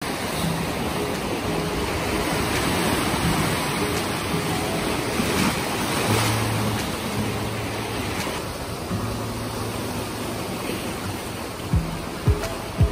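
Sea waves washing and wind rushing over the microphone in a steady noise, with a few low thumps near the end.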